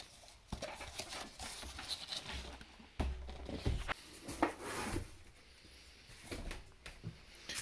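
A cardboard shipping box being opened by hand: irregular rustles, scrapes and light knocks of cardboard and paper packing.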